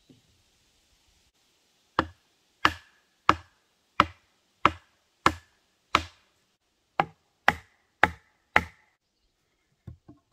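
A peeled wooden pole rammed down into a log, eleven sharp wood-on-wood knocks at about one and a half a second, with a short pause after the seventh. A few faint knocks follow near the end.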